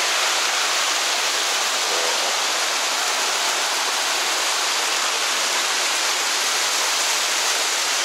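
Waterfall cascading over limestone rock: a steady, even rush of falling water.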